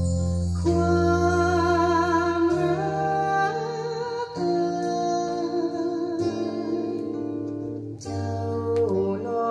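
A vinyl record of a slow Thai song playing through a hi-fi system: a wavering melody with vibrato over a sustained accompaniment, dipping briefly about eight seconds in.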